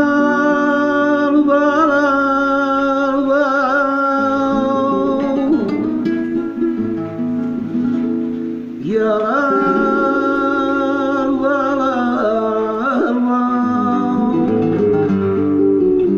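Live flamenco cante: a man sings long, ornamented phrases with wavering pitch over two Spanish guitars. A new sung phrase begins about nine seconds in.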